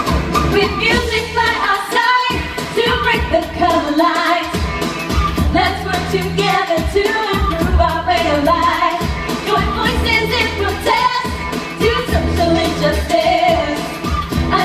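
Live pop music from a stage band: vocals over drums, keyboards and a heavy bass line, with short breaks in the bass every couple of seconds.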